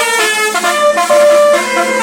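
Bus telolet horn, a Basuri multi-trumpet musical air horn, playing a fast melody of short stepped notes with one longer held note in the middle.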